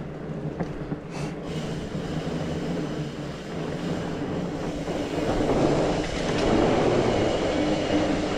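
Mountain bike riding along a dirt trail: a steady rolling rumble with a low hum, growing louder about five seconds in.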